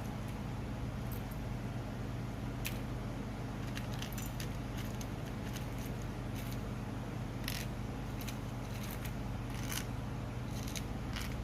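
Small, sharp clicks and ticks at irregular intervals from Royal Kludge G68 mechanical keyboard switch parts being handled during lubing, over a steady low hum.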